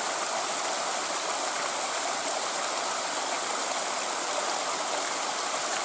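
Mountain stream rushing steadily, an even unbroken rush of flowing water.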